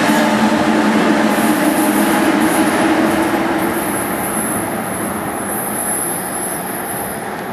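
Passenger train rolling along the track: a dense rumble of wheels and running gear with a steady hum that fades about halfway through, while the whole sound slowly grows quieter. A thin, high wheel squeal comes and goes over it.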